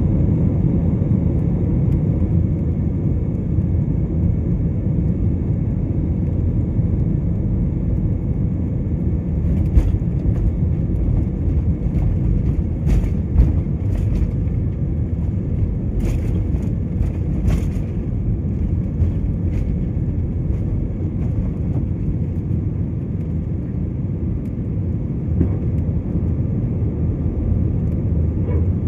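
Steady low rumble of a jet airliner's engines, with a few faint clicks in the middle.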